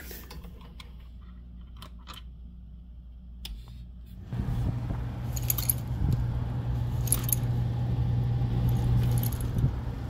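A few light handling clicks, then about four seconds in a hydronic air handler starts running: a steady low hum with a rushing of air. Light metallic jingles come now and then over the hum.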